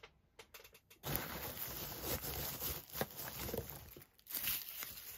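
Packing peanuts rustling and shifting in a cardboard box as a hand digs through them and pulls out a bottle, with crinkling of its plastic wrap. The rustling starts about a second in and flares again near the end.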